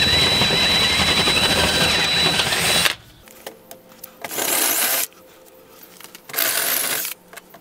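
DeWalt cordless drill spinning a step drill bit in the drilled holes of an aluminum storm door, deburring them: a steady high motor whine with rasping cutting noise for about three seconds that stops suddenly, then two shorter bursts of noise.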